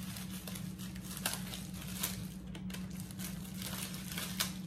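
Plastic bread bag crinkling and rustling as it is handled, in irregular crackles with a few sharper ones, over a steady low hum.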